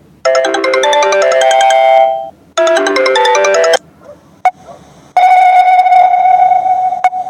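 Phone ringtones: a short electronic melody plays twice with a brief break between, then after a pause and a click a second ringtone begins, a single long held tone that stops briefly and starts again.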